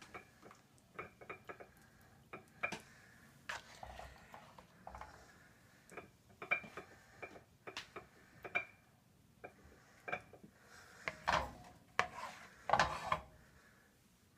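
Black plastic ladle scraping and knocking against a nonstick pan and a ceramic bowl while scooping and serving shrimp and lobster pieces: a string of irregular clinks and short scrapes, the longest and loudest scrapes near the end.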